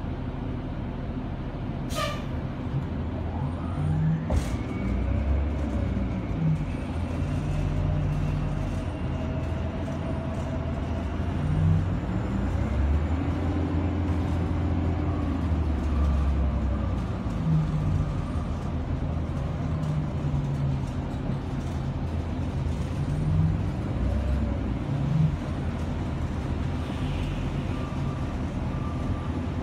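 City transit bus heard from inside the cabin: its engine runs steadily and rises in pitch several times as the bus speeds up, dropping back in between. There are two sharp clicks about two and four seconds in.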